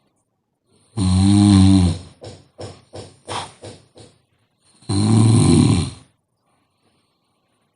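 A woman snoring in her sleep: two loud, rasping snores about four seconds apart, with a run of short sputtering breaths between them.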